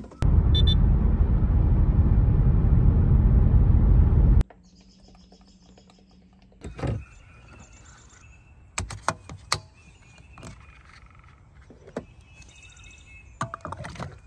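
A loud, steady rushing noise that lasts about four seconds and cuts off abruptly. After it come scattered clicks and small knocks from handling a car's fuel filler door and cap.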